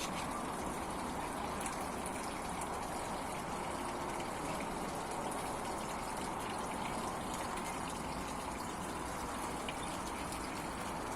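Small garden fountain and waterfall with water pouring and splashing steadily over an artificial rock.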